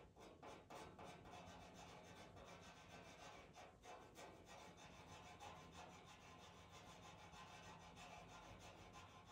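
Pastel pencil scratching across textured Pastelmat paper in a quick run of short, light strokes, faint and close.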